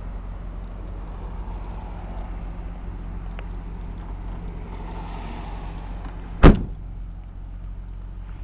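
Toyota Soarer's trunk lid shut with one sharp slam about six and a half seconds in, over a steady low hum.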